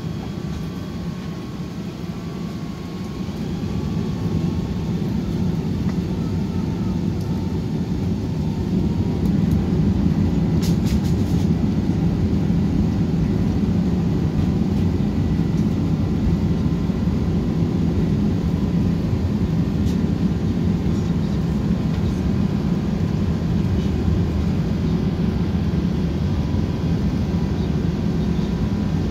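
Airbus A380's four jet engines spooling up to takeoff power, heard from inside the cabin as a loud, deep rumble during the takeoff roll. The noise grows about four seconds in and again near nine seconds, then holds steady as the aircraft accelerates down the runway.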